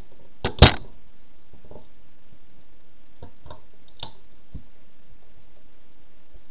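High heels tapping: two sharp clicks close together about half a second in, then a few faint ticks, over a steady background hiss.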